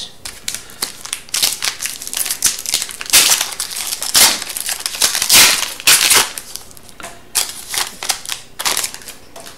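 Plastic card sleeves and packaging crinkling and rustling in short, irregular bursts as trading cards are handled and slipped into a protective holder.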